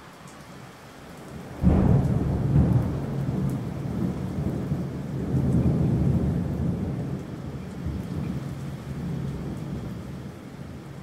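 Steady rain, then a sudden loud thunderclap about a second and a half in that rolls on as a low rumble, slowly fading toward the end.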